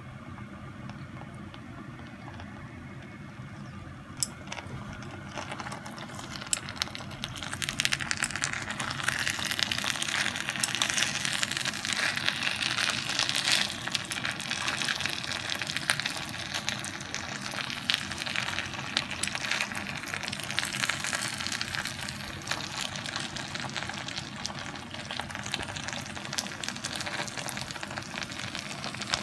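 Yakisoba noodles in thick ankake sauce sizzling and crackling in an open, hot cast hot-sandwich maker. The sizzle grows louder about eight seconds in, with chopsticks stirring the noodles.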